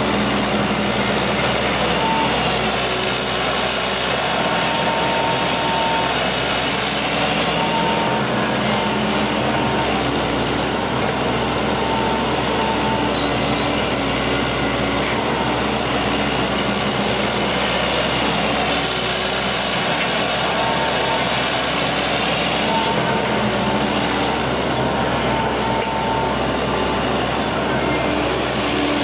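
Excavator's diesel engine running steadily as it digs and loads soil, with a higher tone that comes and goes throughout.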